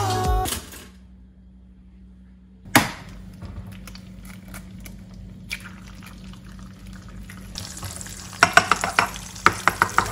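Eggs frying in oil in a non-stick frying pan. A single sharp knock a little under three seconds in is followed by a steady sizzle, which grows louder near the end with a quick run of sharp pops and crackles from the hot fat.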